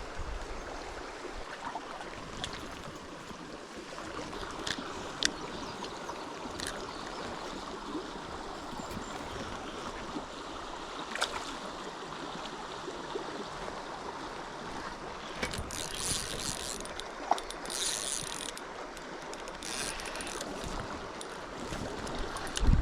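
Stream water running steadily, with a fishing reel being cranked and scattered light clicks. A brighter hiss rises for a few seconds past the middle.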